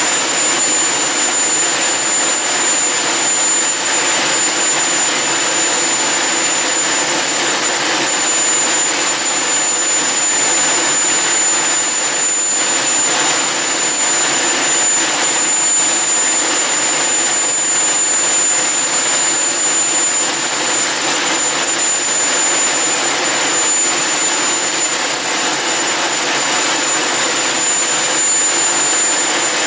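Homemade turbojet engine (HX Monster Mark 2) running steadily at a constant speed on a test run: a loud, even rush of jet noise with a steady high-pitched whine over it.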